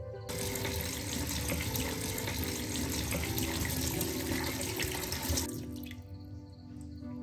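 Tap water running into a stainless steel bowl of raw mutton pieces and splashing over them as the meat is washed by hand. The flow stops about five and a half seconds in.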